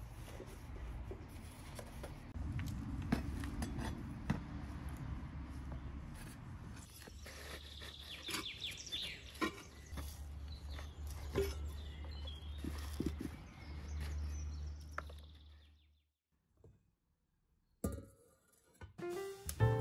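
Hands working potting soil into a flowerpot with a trowel: small scrapes and knocks over a steady low outdoor rumble, with a few bird chirps about eight seconds in. After a short silence, a glass bowl clinks onto a steel pot near the end.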